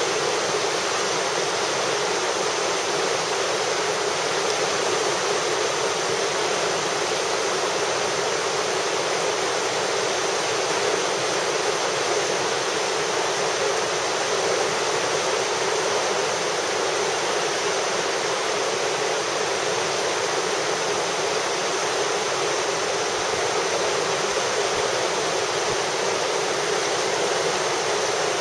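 Whitewater rushing steadily through a river rapid, an even wash of water noise with no breaks or changes.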